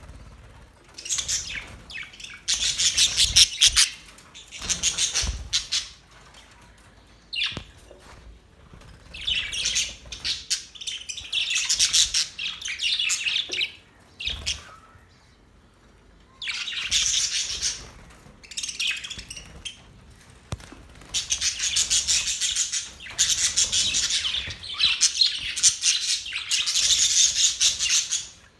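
Budgerigars chirping and chattering in rapid, high-pitched bouts of a second or a few seconds, with short pauses between.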